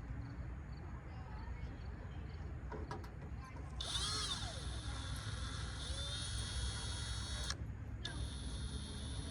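Power drill driving a long screw into a headlight bezel's plastic mounting. The motor whine starts about four seconds in and runs nearly four seconds, stops briefly, then starts again near the end.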